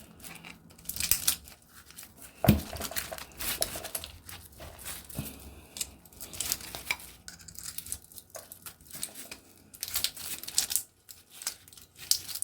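Copper windings being pulled and torn out of a halved compressor motor's stator: irregular tearing, rustling and scraping with small metal clinks, and a sharp knock about two and a half seconds in.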